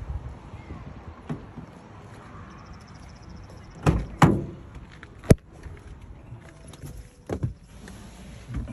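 Someone getting into a car: two thumps about four seconds in, a sharp click a second later, and another thump near the end, the knocks of a car door and the body of the car being handled.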